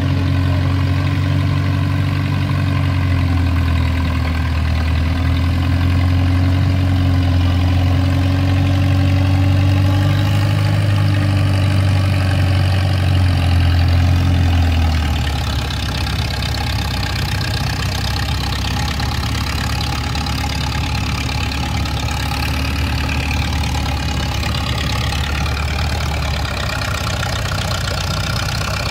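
Antique tractor engine running under load while pulling a weight sled on a chain. About halfway through, the engine note drops to a lower, rougher sound, and it keeps pulling at that lower note.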